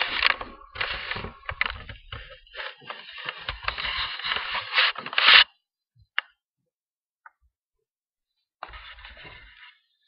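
Dog snoring, a rattling, raspy breathing sound in uneven stretches that stops about five and a half seconds in. A shorter, quieter snore comes back near the end.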